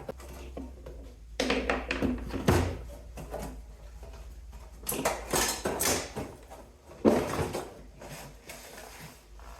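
Metal parts clanking and rattling in three short bouts as a scrap cooling unit is taken apart.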